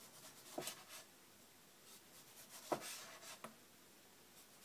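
Large kitchen knife slicing a tomato, the blade knocking on a plastic cutting board as each slice comes off: a few short knocks, the two clearest about two seconds apart, with faint scraping of the blade between.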